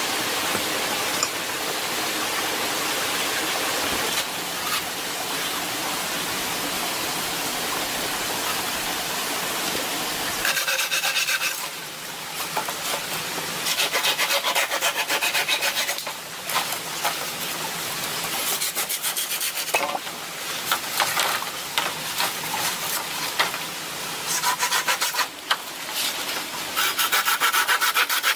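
A hand saw cutting through green bamboo stalks in quick back-and-forth strokes, with short pauses between runs. For the first ten seconds, before the sawing, there is only a steady rushing noise.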